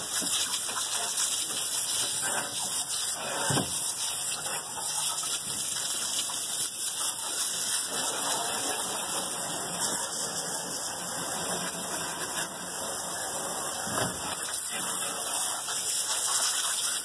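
Garden hose spray nozzle jetting water in a steady hiss, rinsing a skinned rabbit carcass and splashing onto a pickup tailgate.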